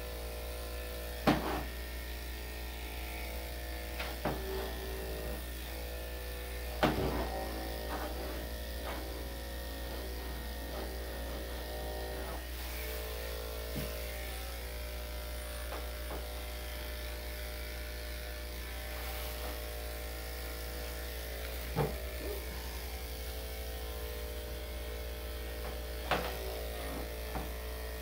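Electric dog grooming clippers with a #5 blade running steadily as they shave through a dog's coat. A few sharp knocks sound over the hum, the loudest about seven seconds in.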